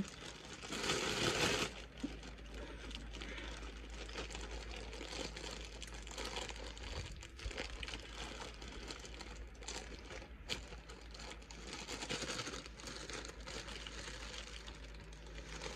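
Plastic snack wrappers crinkling and rustling as packages are handled, with a louder burst of rustling about a second in.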